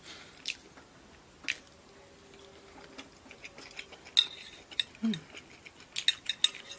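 Wooden chopsticks clicking and tapping against a ceramic serving dish while picking up food: a few separate sharp clicks, then a quick cluster near the end, with a short low hum from the eater about five seconds in.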